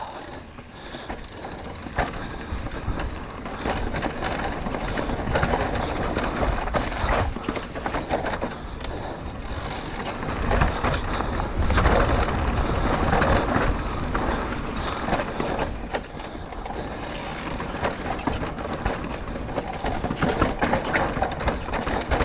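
Trek Rail electric mountain bike riding down a rough, rocky dirt trail: tyres rumbling over rock and dirt, with a constant rattle and clatter of the bike over the bumps that swells and eases with the terrain.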